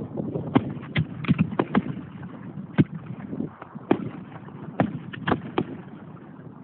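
Aerial fireworks going off: about a dozen sharp bangs at irregular intervals over a low rumble, thinning out near the end.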